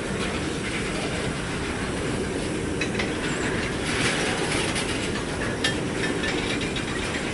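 Freight train rolling past: a steady rumble of steel wheels on the rails with scattered clicks and knocks, one louder knock a little past halfway.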